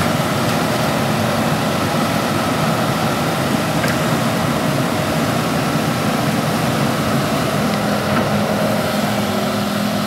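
Crawler excavator's diesel engine running steadily while it digs mud, with a low engine note that grows stronger near the end.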